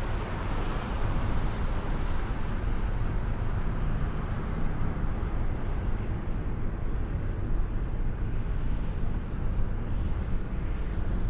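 Steady road noise of a car driving: a low rumble of engine and tyres with a hiss over it that thins out a little after the middle.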